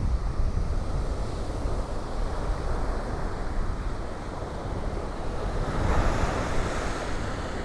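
Gulf of Mexico surf breaking on the beach, a steady wash of waves with one swell louder about six seconds in, under a low rumble of wind on the microphone.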